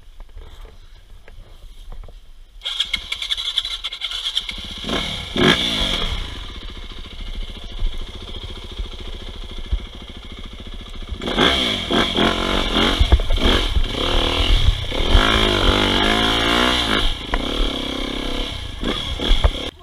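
Yamaha dirt bike's engine, heard close from a camera on the rider, comes in sharply about three seconds in and runs under throttle as the bike is ridden along a muddy trail, revving up and down twice. A low wind rumble on the microphone sits underneath.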